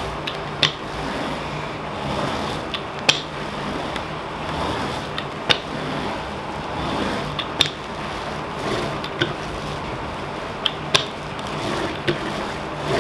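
A hand roller rolling over the resin drills of a diamond painting, making a steady gritty rolling noise with sharp clicks every second or two, as it presses the drills down onto the canvas.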